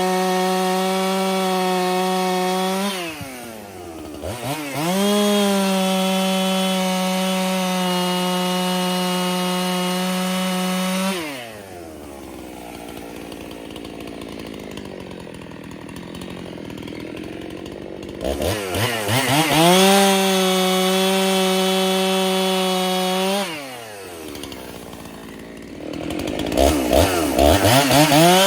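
Freshly rebuilt Husqvarna 371 two-stroke chainsaw cutting firewood, held at a steady high-revving full throttle through the cuts and dropping back to idle between them. It dips briefly about three seconds in and idles for several seconds in the middle. It then revs up again twice, the second time near the end.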